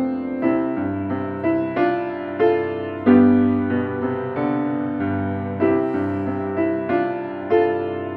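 Steinway grand piano played solo: a slow, gentle melody with a new note about every half second, over sustained low bass notes.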